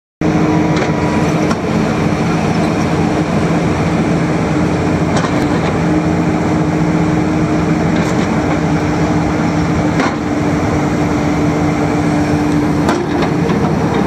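New Holland L175 skid steer loader's four-cylinder diesel engine running steadily as the loader arms are raised and lowered, with a few sharp knocks now and then.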